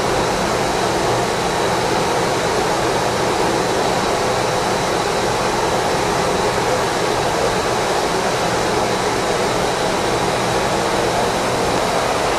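The 5 HP single-speed electric drive motor of a Ross double planetary mixer running steadily: an even whirring rush with a low hum and a faint high whine.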